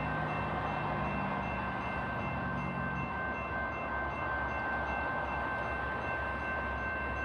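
Railroad grade-crossing warning bell ringing rapidly and steadily, the signal that a train is approaching. A car's engine runs under it for the first three seconds.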